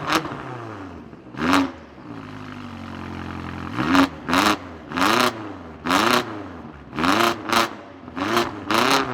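BMW engine free-revving in sharp throttle blips, the revs shooting up and dropping straight back. There is one slower climb peaking about four seconds in, then blips roughly once a second.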